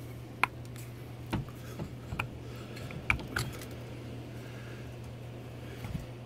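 Parts of a gear-reduction starter motor being pulled apart and handled by hand: a handful of sharp, irregular clicks and light metallic taps as the housing comes off the brush holder and armature.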